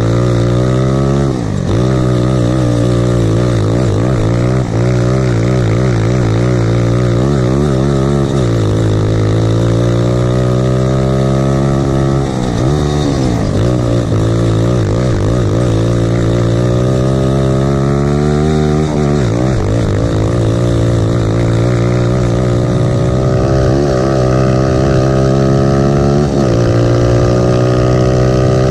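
Lifan single-cylinder four-stroke grass kart engine running hard. Its revs fall sharply five times as the kart slows for corners, then climb steadily back along each straight.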